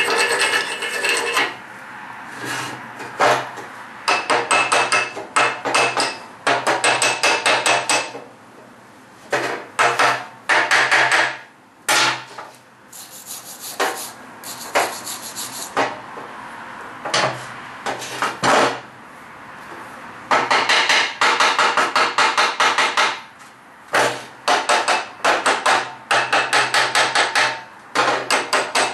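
Electric arc welder laying a run of short tack welds: many bursts of crackling arc, each one to three seconds long with a low buzz under it, separated by brief pauses.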